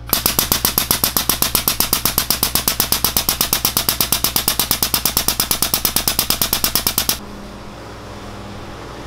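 Air-over-hydraulic foot pump powering a hydraulic tube bender as it bends steel tube, chattering in a rapid, even rhythm of about eight strokes a second. It stops abruptly about seven seconds in, leaving a low steady hum.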